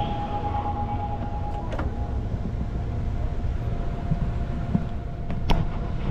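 Subway train running: a steady low rumble with a thin, steady high tone over it, and two sharp clicks, one about two seconds in and one near the end.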